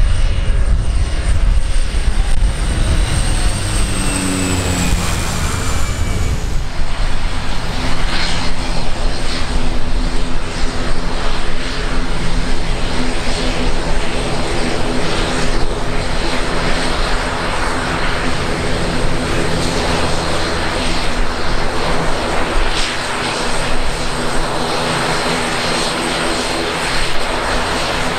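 Aircraft engines running, their pitch falling over the first six seconds as the plane passes, then a steady drone with a constant low hum.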